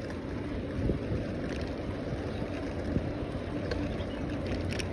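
Wind rushing over the microphone of a handlebar-mounted phone on a moving bicycle, a steady low rumble with a few faint ticks.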